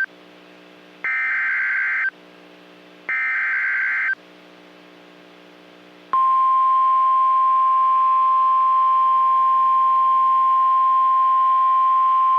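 NOAA Weather Radio emergency alert: the end of one burst of the SAME digital header, then two more bursts of buzzy modem-like data, each about a second long with a second between. After a pause of about two seconds, the steady single-pitch 1050 Hz Weather Radio warning alarm tone starts about six seconds in and holds, announcing a new warning.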